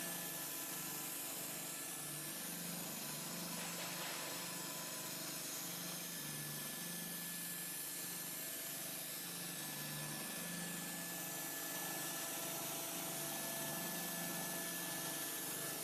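Trapezoidal-thread spindle-making machine running steadily as its cardan-shaft-driven rolls turn the steel screw blank: an even hiss with a few faint steady whines and a low, wavering hum.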